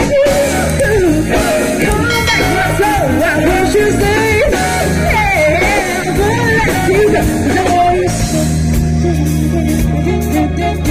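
Live band music with a woman singing over it; about eight seconds in her singing stops and the band carries on with a steady, bass-heavy groove.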